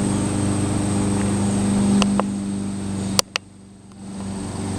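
LG 6,000 BTU window air conditioner running, a steady hum of compressor and fan. A sharp click comes a bit over three seconds in, where the sound drops off suddenly, and the hum picks up again about a second later.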